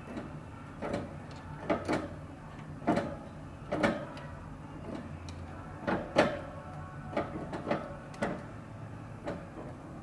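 A budgerigar pecking and biting at pea shoots held in a plastic clip on the wire cage: irregular sharp clicks and snaps, about a dozen, some in quick pairs, the loudest a little past the middle.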